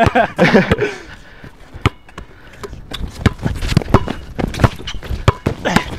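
Basketball bouncing on a hard court in a dribble, sharp irregular bounces mixed with the scuff of sneaker footsteps as a player drives.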